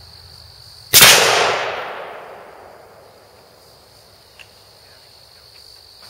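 A single rifle shot from a Zastava M70 NPAP AK-47 (7.62×39mm) about a second in, loud and sharp, its echo dying away over about two seconds. Crickets keep up a steady high trill behind it.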